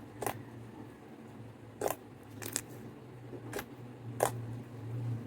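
Homemade glitter slime being squeezed and played with by hand, giving about five sharp pops and clicks spread over a few seconds, over a steady low hum.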